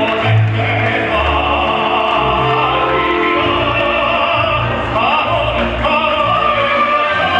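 Classical-style music with an operatic singing voice, played for ballroom dancing.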